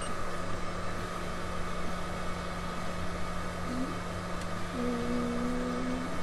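Steady hum and hiss of the videoendoscopy equipment during a laryngeal examination, with a short sustained vowel from the patient, held on one pitch for about a second near the end, as the vocal folds are examined on phonation.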